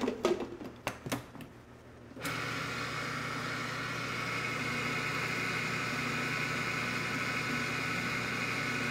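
A few knocks as the food processor's lid is set on, then about two seconds in the motor starts and runs steadily, pureeing boiled parsnips into a mash.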